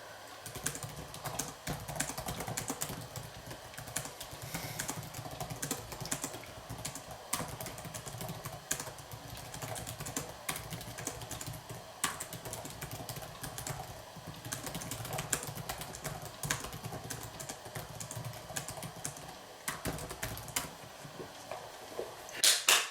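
Fast typing on a computer keyboard: a quick, uneven run of key clicks, with a brief pause about twenty seconds in and a few louder knocks at the very end.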